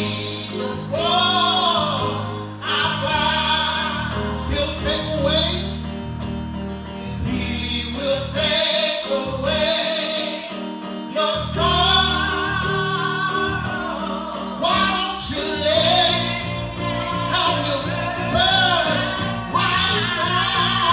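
Gospel music: voices singing over instrumental accompaniment with a steady bass line.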